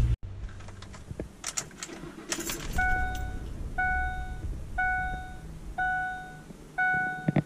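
A few jangling clicks, then a 2008 Ford F-150's dashboard warning chime, which starts about three seconds in and dings about once a second, five times.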